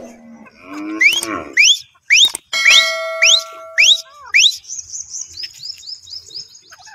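A cow lows briefly at the start, then a grey francolin calls: a series of loud whistles, each sweeping sharply upward, about two a second. These give way to a run of quicker, higher, fainter rising notes that die away.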